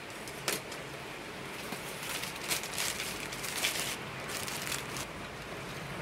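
Chopsticks scraping and tapping against a soy-glazed rice cracker and a stainless-steel tray, a run of short scrapes in the middle, over a steady low hiss.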